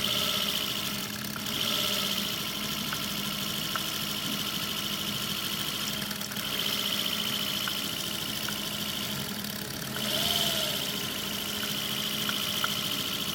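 Car engine idling steadily, with a hiss that swells and fades a few times and occasional faint ticks.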